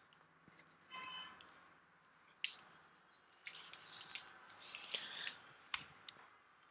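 Faint handling of a MacBook Pro's white plastic power adapter and cable: scattered small clicks and short plastic rubbing and scraping sounds, with a brief squeak about a second in.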